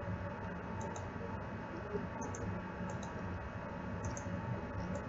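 Room tone: a steady hum and hiss with a few faint, scattered clicks.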